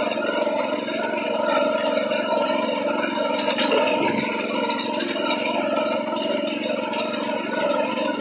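Walk-behind reaper's small engine running steadily, with its reciprocating cutter bar clattering as it mows through tall grass.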